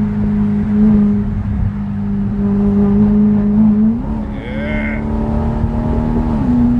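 Ferrari engine and exhaust running at a steady cruise with a constant droning note, heard from inside the car; the pitch steps up slightly about four seconds in and again near the end.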